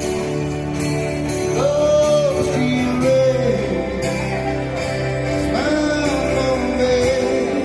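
Live male vocalist singing into a microphone while playing an acoustic guitar, with two long held sung notes over the guitar chords.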